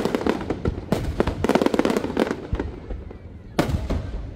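Aerial firework shells bursting in quick succession, a dense run of bangs and crackles through the first two and a half seconds, then a single loud bang about three and a half seconds in.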